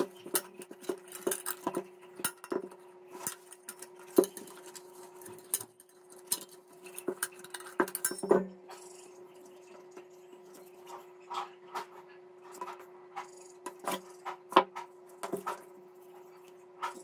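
Metal wire clinking, tapping and scraping against a metal plate as it is bent around the rim by hand: a run of irregular sharp clicks, over a faint steady hum.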